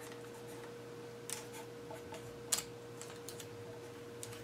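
Marker pen writing on a sheet of paper: a few soft taps and scratches over a steady low hum.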